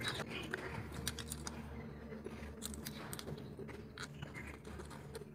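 Faint crackling and clicking of a foil blister pack as a capsule is pressed out through the foil, over a low steady hum.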